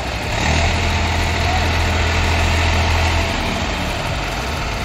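Eicher 480 tractor's diesel engine running hard under load as the tractor, stuck in soft mud with a loaded trailer, strains to pull free. Its drone grows louder about half a second in and eases back slightly about three seconds in.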